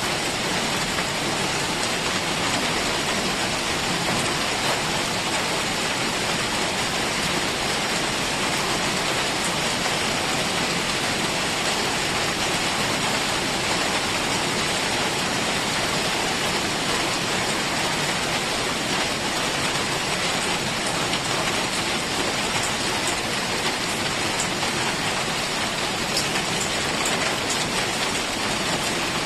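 Heavy rain falling steadily in a forest, a dense, even hiss with no let-up.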